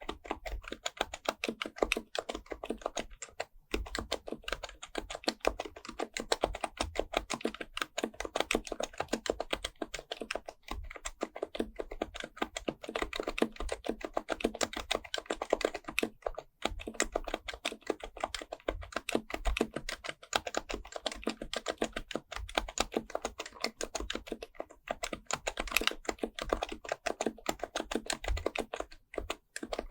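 Fast, continuous typing on an HHKB Pro Type-S keyboard with Topre switches: a dense run of soft keystroke clicks, broken by brief pauses about four seconds in, about halfway through and near the end.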